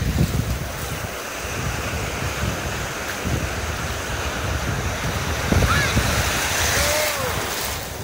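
Ocean surf washing in over the shallows at the water's edge, its foamy wash hissing louder from about five seconds in and easing near the end, with wind buffeting the microphone.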